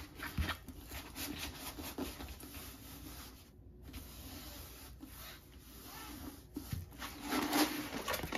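Pour-glue diamond painting canvas and its release sheet being rolled up by hand on a tabletop: soft, uneven rubbing and rustling with a few light knocks, a little louder near the end.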